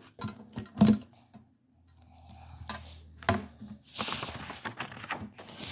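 Light knocks and clacks of something being handled, the loudest about a second in, then a low hum and a rustle about four seconds in.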